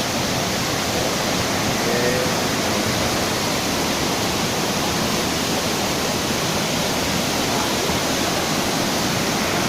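Waterfall: falling water rushing in a steady, even noise without pauses.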